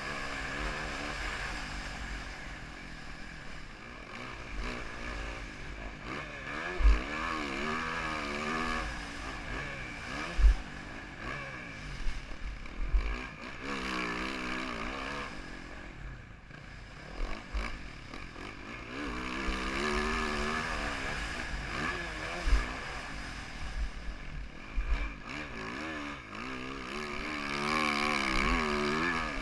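2014 Yamaha YZ450F's single-cylinder four-stroke engine revving up and falling back over and over as the motocross bike is ridden around a track, with several sharp low thumps along the way.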